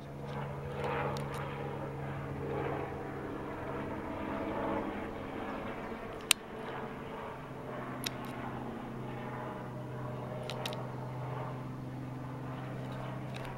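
Small two-bladed light helicopter flying low overhead: a steady drone of rotor and engine, a little louder in the first few seconds. A few sharp clicks stand out, the loudest about six seconds in.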